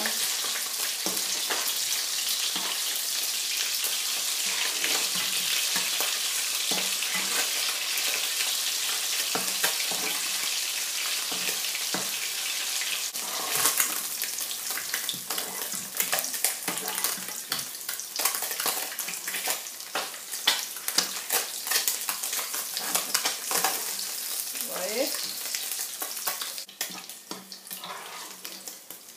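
Sea bass pieces sizzling in olive oil in a nonstick frying pan. A steady sizzle runs for about the first half. Then a utensil clicks and scrapes against the pan as the pieces are lifted out, and the sizzle thins and dies away near the end.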